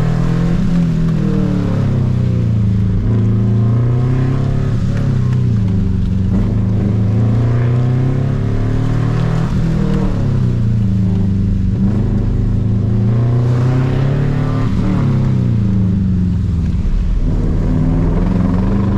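Subaru Impreza 2.5 RS's 2.5-litre flat-four engine under hard driving, its pitch repeatedly rising and falling every few seconds as the car accelerates and lifts between corners on an autocross course.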